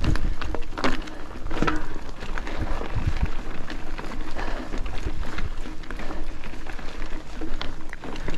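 Mountain bike riding over a rough, stony track: a crackling rolling noise with scattered knocks and rattles, over a steady low rumble.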